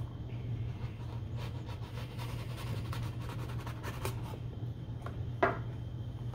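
A blade slicing through packing tape along the seam of a cardboard box: a quick run of scratchy rasping strokes, with one sharper tearing stroke about five seconds in. A steady low hum sits underneath.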